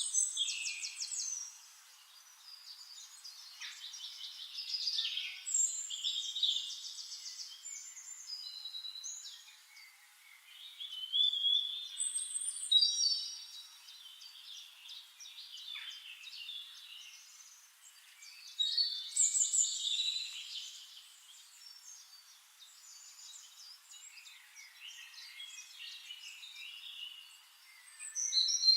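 Songbirds chirping and singing: rapid high trills and short chirps in bursts every several seconds, with quieter chirping between them.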